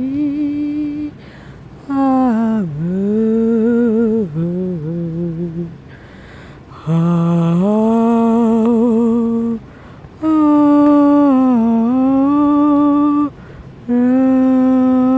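A person humming a slow, wordless melody in long held phrases, the pitch gliding down and up and wavering, with short breaths between phrases.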